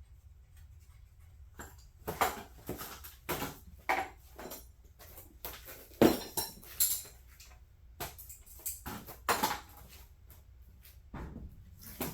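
Irregular clinks and knocks of hard objects being handled, starting about a second and a half in, the loudest about six seconds in.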